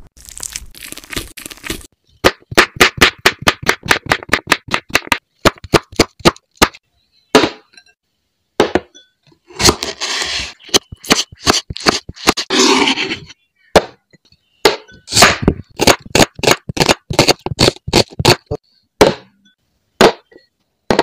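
A knife chopping vegetables on a wooden cutting board: runs of sharp, even chops, about four a second, with a stretch of slicing and scraping in the middle.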